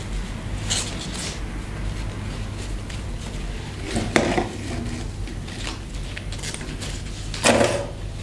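Wire-edged shot taffeta ribbon crinkling and rustling as it is pinched and looped into a bow, with two louder rustles about four seconds in and near the end, over a steady low hum.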